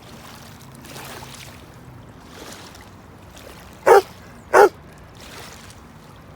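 A dog barks twice in quick succession, about four seconds in.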